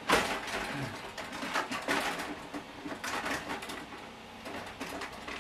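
A sharp knock, then irregular clicks and rustles: a large RC truck being set down and handled.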